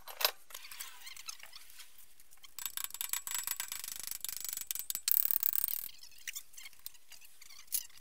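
Metal parts of a differential clicking and knocking as they are handled and fitted during reassembly, with a denser stretch of rapid clicking and rattling in the middle lasting about three seconds.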